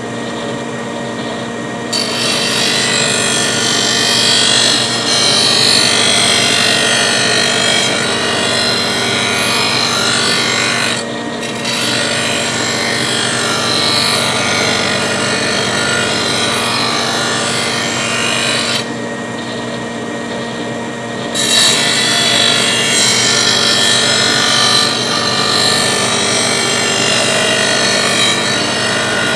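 Electric mower-blade sharpener running, its grinding wheel grinding the steel edge of a lawnmower blade to take metal off and bring the blade into balance. The harsh grinding drops away briefly about a third of the way in and again for a couple of seconds about two-thirds of the way through, leaving the steady hum of the motor.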